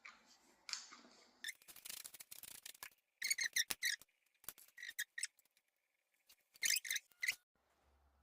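Scratchy rustling and clicking as a model dog mannequin's faux fur and plastic parts are handled, followed by a run of short, high-pitched squeaks.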